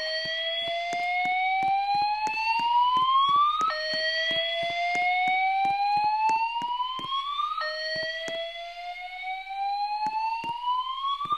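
School fire alarm voice-evacuation speakers sounding the whoop tone: three rising sweeps, each about four seconds long, with a faint regular clicking underneath.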